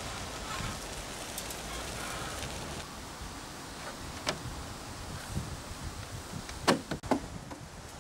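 Mailbox lid knocking shut: a sharp knock about four seconds in and two louder ones close together near the end, over a steady low outdoor rumble.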